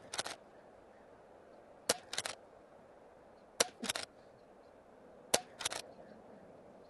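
Umarex Zelos .22 regulated PCP air rifle firing a string of shots. Three sharp cracks about 1.7 seconds apart, each followed about a third of a second later by a short cluster of softer clicks.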